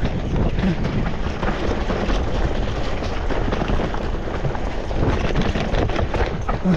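Wind buffeting the microphone over the tyre and frame clatter of an electric mountain bike riding fast down rough trail, with a steady stream of small knocks and rattles.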